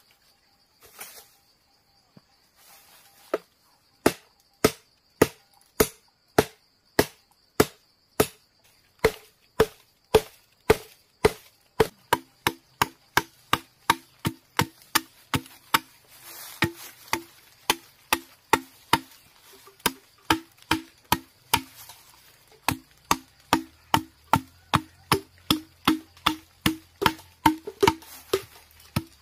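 Machete chopping notches into a green bamboo tube, a long run of steady strokes that starts about four seconds in at roughly one and a half a second and gets quicker about halfway through, each stroke with a short hollow knock from the tube.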